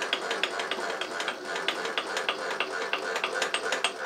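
Milling machine running steadily, with a rapid, regular clicking of about five clicks a second over the hum.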